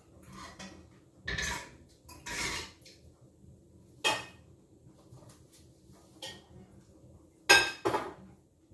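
Kitchenware clattering: a series of knocks and short scraping clinks, one sharp knock about four seconds in and the loudest pair of clatters near the end.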